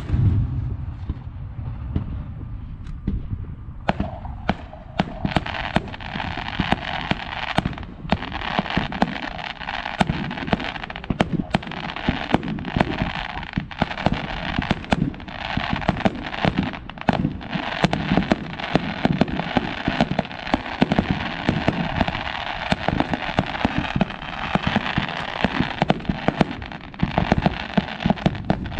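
Aerial fireworks shells bursting: a deep boom at the start, then from about four seconds in a dense, continuous barrage of sharp bangs and crackling.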